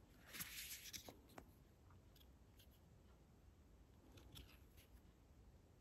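Faint rustling and soft clicks of glossy photocards sliding against each other as they are handled and stacked. The rustles come mostly in the first second or so, followed by a few light ticks.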